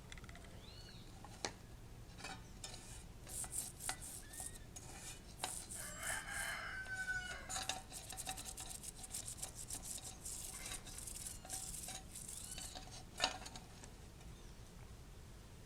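Toothbrush scrubbing a greasy bicycle chain and rear derailleur with kerosene: quick scratchy brush strokes, on and off, with one sharp knock about thirteen seconds in. A bird calls briefly in the background about six seconds in.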